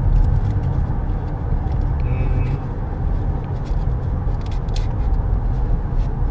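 Steady road and engine noise inside the cabin of a moving pickup truck.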